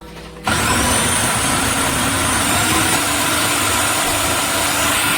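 A small electric motor running loud and steady with a faint whine, switching on abruptly about half a second in and running for about five seconds.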